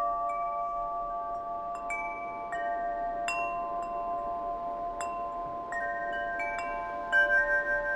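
Chimes ringing: bell-like notes struck at irregular moments, each ringing on and overlapping the next. A brighter cluster of strikes comes near the end.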